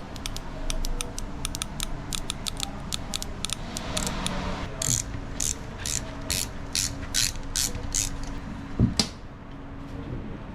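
Hand ratchet wrench clicking as a bolt is turned: quick runs of clicks at first, then louder, slower strokes about two or three a second, with one heavier knock near the end.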